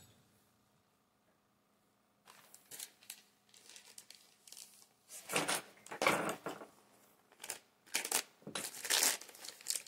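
Clear plastic parts bag crinkling and rustling in irregular bursts as it is handled, starting about two seconds in.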